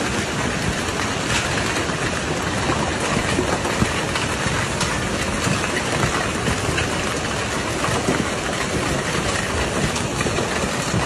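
Heavy thunderstorm downpour pounding steadily: a dense, even rush of many small impacts.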